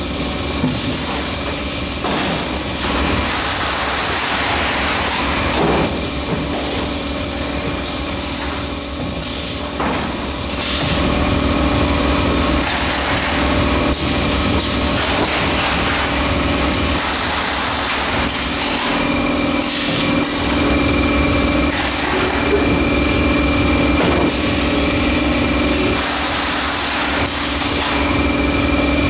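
Automatic case erector and carton sealing machine running: a steady hum with several held tones, overlaid by shifting hiss and occasional clicks from its air-cylinder carton-forming and taping actions.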